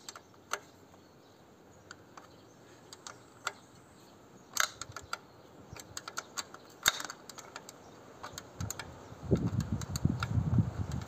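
Scattered small clicks and taps of hands fitting and seating the oil-bath air filter housing on a diesel tiller engine, which is not running. From about nine seconds in, a louder low rumbling noise sets in.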